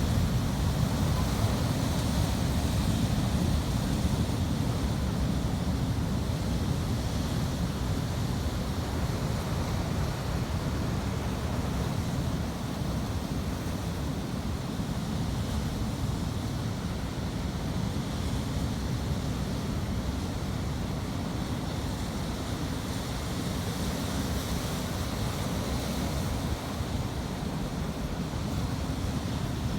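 Ocean waves breaking on a shore: a steady rushing wash with a deep rumble, no single wave standing out.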